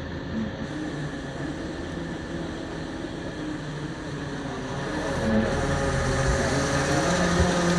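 Fishing boat's engine and machinery running steadily while the net is hauled in, with a few held droning tones, growing louder about five seconds in.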